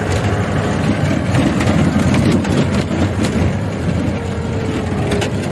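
Vintage Land Rover's engine running at low speed on a rough dirt track, a steady low rumble with sharp knocks and rattles from the body about once a second.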